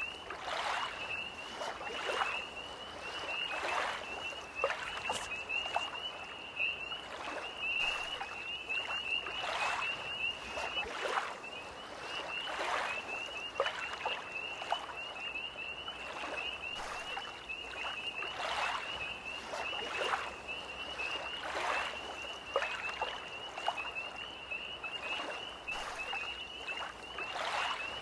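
Tree frogs trilling in a steady, high-pitched chorus over small lake waves lapping in short splashes every second or two.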